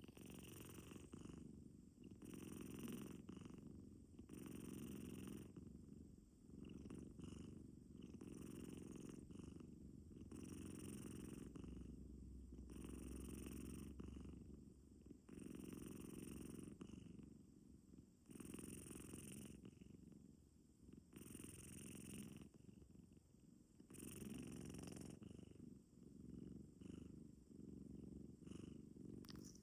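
Short-legged Munchkin cat purring in its sleep: a soft, low rumbling purr that swells and fades in slow waves, about one every two seconds with its breathing, so that it sounds like snoring.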